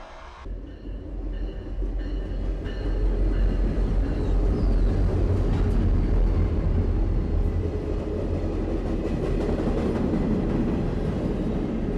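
CSX passenger train, led by a diesel locomotive, passing close by: a steady low rumble of the engine and wheels on the rails that grows louder over the first few seconds. Faint high steady tones sound during the first two seconds or so.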